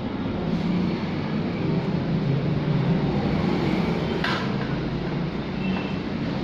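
Metal saloon chair's reclining backrest worked by hand, with one sharp click about four seconds in, over a steady low rumble.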